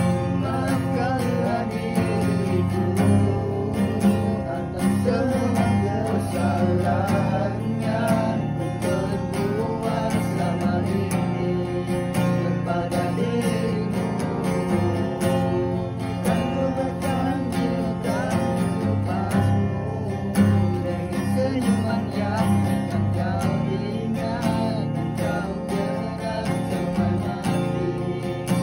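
Acoustic guitar strummed steadily, with a man singing along.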